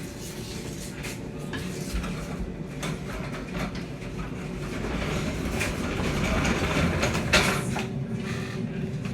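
Equipment being handled: scattered clatter and knocks, with one louder knock about seven seconds in, over a steady low hum.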